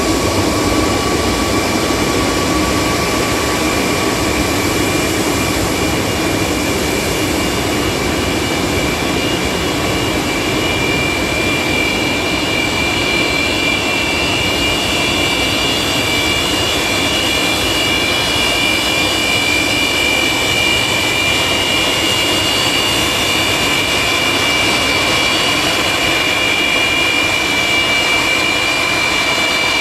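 Antonov An-124's four D-18T turbofan engines running at taxi power: a steady jet rumble with a high turbine whine that grows stronger after about twelve seconds as the aircraft taxis closer.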